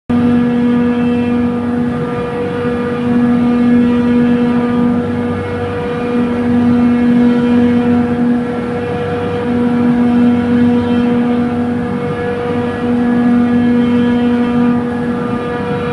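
Trane chiller compressor running with a steady mechanical hum and a constant tone. A lower tone swells in and drops out about every three seconds: the abnormal noise on the discharge-valve side that the title links to gas bypassing.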